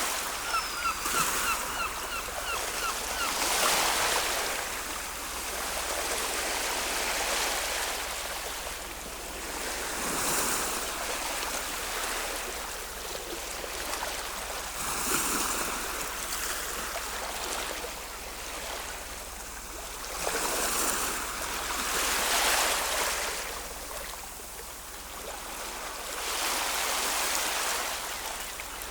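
Ocean waves washing onto a shore, a steady rush that swells and falls back every few seconds. A short run of quick high chirps comes about a second in.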